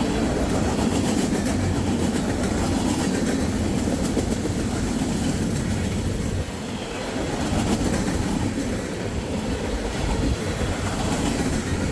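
The last cars of a Norfolk Southern freight train rolling past, a continuous rumble with the wheels clacking on the rails.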